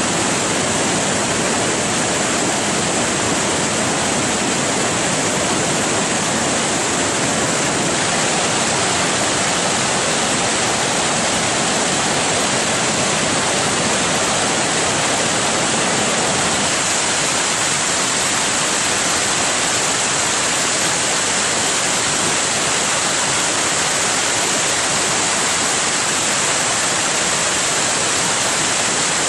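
Waterfall and rocky river in heavy flood, swollen by continuous monsoon rain: a torrent of water pouring and churning over rock, a steady, unbroken rush of water.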